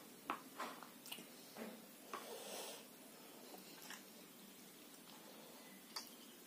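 Faint wet squelching and small clicks of a cut elaichi lemon being squeezed by hand over rice, most of it in the first three seconds.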